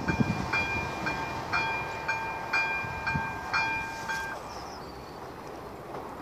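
Railway level-crossing warning bell striking about twice a second with a ringing tone, stopping about four seconds in, under the fading rumble of a train that has just passed.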